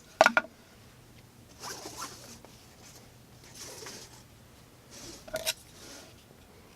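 The CRKT Offbeat 2's satin 8Cr13MoV blade slicing through material in three short swishing, zipper-like cuts, the last ending in a couple of clicks. A sharp knock comes just after the start, the loudest sound.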